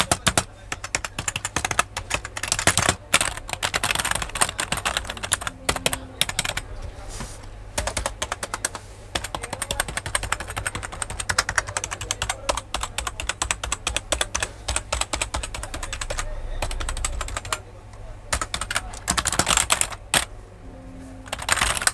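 Fast typing on an iMICE AK-900 USB gaming keyboard: dense, continuous runs of key clicks, broken by a couple of short pauses near the end.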